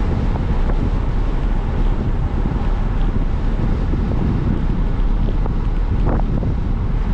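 Steady, loud wind buffeting the microphone of a bicycle riding fast downhill on asphalt, a dense low rumble of rushing air from the speed of the descent.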